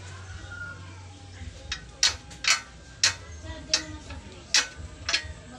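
Sharp metal clinks as a thin steel rod is worked on a homemade steel bending jig, bending a scroll for a grille. About seven clicks begin a little under two seconds in, unevenly spaced.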